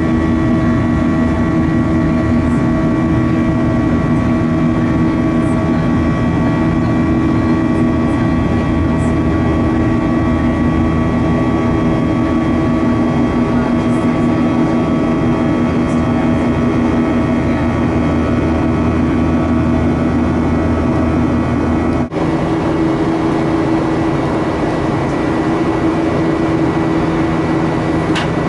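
Boeing 737-800 cabin noise during the climb after takeoff: the CFM56-7B engines' steady drone with several steady hum tones over the rush of air. It briefly drops out for a moment about three-quarters of the way through.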